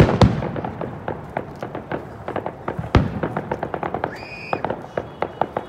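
Fireworks display: a loud bang right at the start and another about three seconds in, with rapid crackling and popping between them. A brief high-pitched tone sounds about four seconds in.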